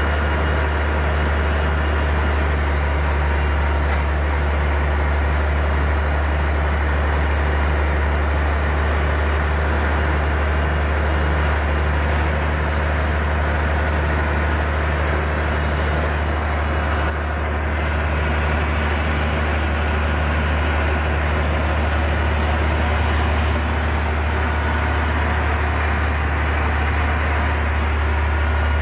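Heavy diesel engine of earth-moving equipment running steadily at a constant low pitch, with an even hiss over it and no change in speed.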